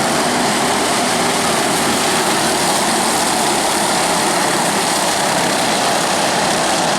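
Small 50cc mini sprint car engines buzzing together as a pack of cars races round the track, steady and loud throughout.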